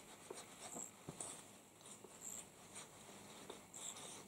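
Near silence: faint, scattered soft rustles and light taps of cotton quilt fabric being handled and smoothed on a padded ironing board.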